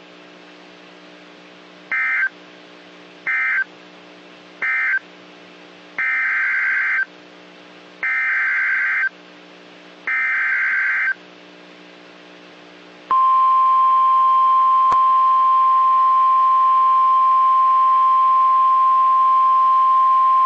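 NOAA Weather Radio Emergency Alert System signal, made of SAME digital data bursts with a buzzing, warbling sound. Three short bursts end the previous warning, and three longer bursts announce the next one. About 13 seconds in, the steady single-pitch 1050 Hz warning alarm tone starts and holds loud.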